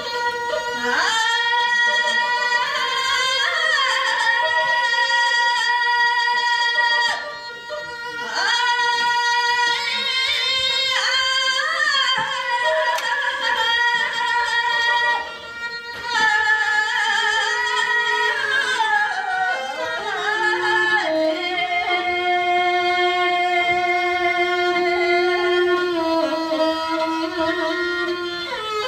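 A singer holding long, ornamented notes with a bowed fiddle playing along, a steady drone under the first part of the phrase. The song breaks off briefly twice, about seven and fifteen seconds in, before going on.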